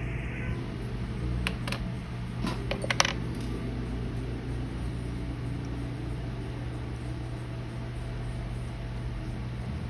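A few small, sharp metallic clicks and taps, about five in quick succession between one and three seconds in, over a steady low hum.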